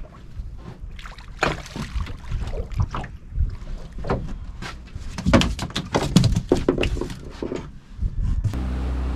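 Irregular knocks, clicks and rattles of a small spurdog being swung aboard on the rod and unhooked in a small boat. Near the end this gives way abruptly to the steady hum of the boat's outboard motor running.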